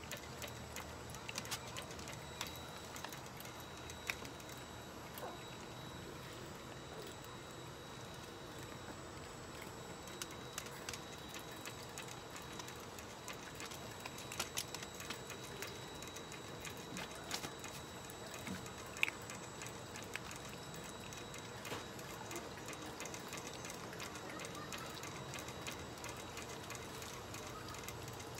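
Long-haired Chihuahua eating dry kibble from a bowl and moving about its pen: scattered, irregular small clicks and crunches, a few sharper ones about halfway through.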